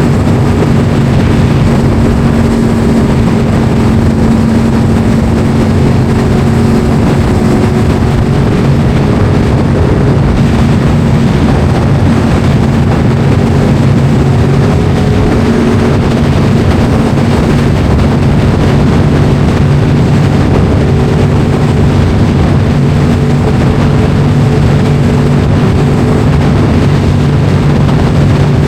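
Sport motorcycle engine running at a steady cruise while riding, its note holding nearly constant throughout.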